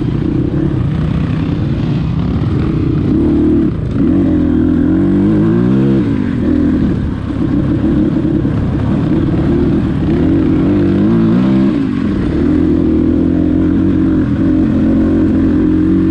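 Dirt bike engine running hard, its pitch rising and falling again and again as the throttle is worked.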